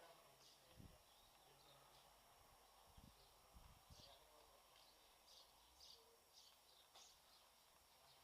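Near silence: faint outdoor ambience with scattered short, high bird chirps and a few soft low thuds.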